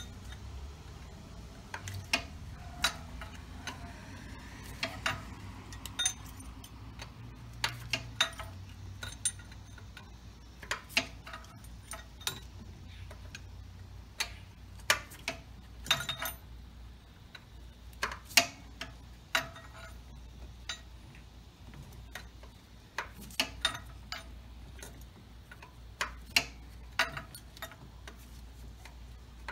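Irregular sharp clicks and light metallic taps, a fraction of a second to a couple of seconds apart, from hand tools and metal parts being handled on a car engine. A faint low steady hum runs underneath.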